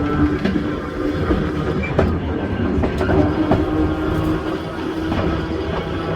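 A Volk's Electric Railway car running on its narrow-gauge track: a steady electric hum over a rumble, with a few sharp clicks from the wheels crossing rail joints.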